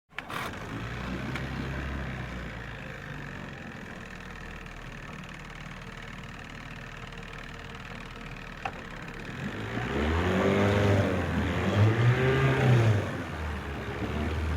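Car engine idling steadily, then revved twice near the end, its pitch rising and falling each time.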